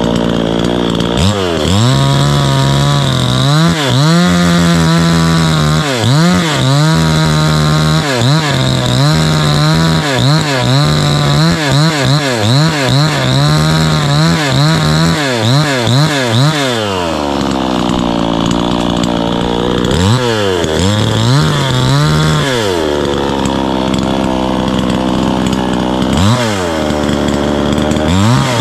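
Two-stroke gasoline chainsaw cutting a log at full throttle, its engine pitch dipping and recovering over and over as the chain loads in the wood. About seventeen seconds in it drops to a lower, steadier speed with a couple of short revs, then goes back to full throttle near the end.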